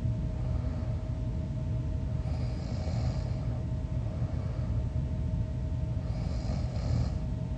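A sleeping person snoring, two breathy snores about four seconds apart, over a steady low rumble and a faint steady hum.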